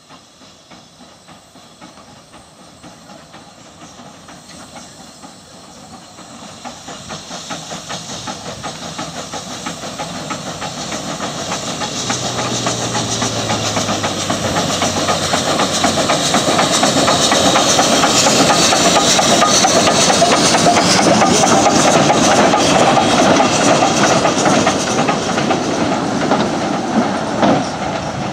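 Achenseebahn steam tank locomotive working toward and past the listener: steady rhythmic exhaust beats with steam hissing, growing louder until it goes by. Near the end the carriages roll past on the rails.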